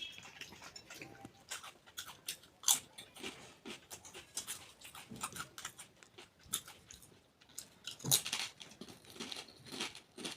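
A person chewing and crunching food: irregular crunches and mouth sounds, with two louder crunches, one a few seconds in and one about three quarters of the way through.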